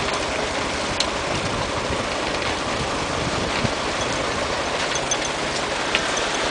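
A truck engine idling steadily, with a few light clicks.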